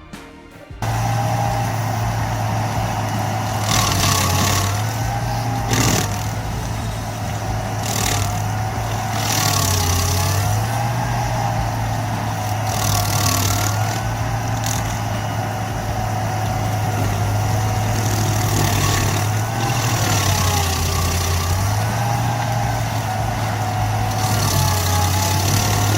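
Heavy machine's engine running steadily, its low drone shifting in pitch now and then, with a wavering whine above it and short bursts of hissing every few seconds.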